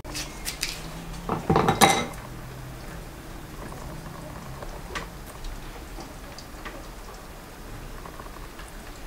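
Kitchen clatter of a knife and dishes: a few light clicks, then a loud cluster of knocks and clinks about two seconds in, then only occasional faint clicks while onion is cut and laid on a plate.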